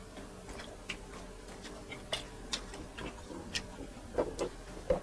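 Close-up eating sounds: irregular, sharp wet clicks and smacks of mouths chewing grilled chicken and rice.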